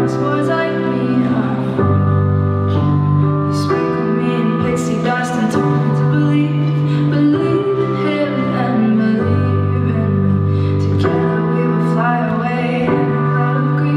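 Recorded music for a stage dance: slow held chords over a low bass note, changing about every two seconds.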